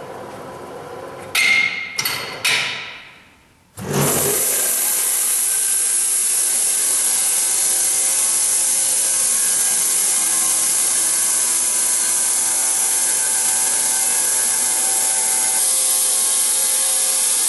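Wood-Mizer LT15 portable bandsaw mill. A few short knocks and whirs come first, then about four seconds in the saw starts and runs with a loud, even, steady noise as the band blade cuts lengthwise through a log.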